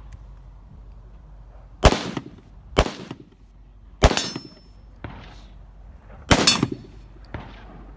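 Four gunshots fired a second or two apart from a prone position, each with a short echo trailing off, and a weaker report near the end.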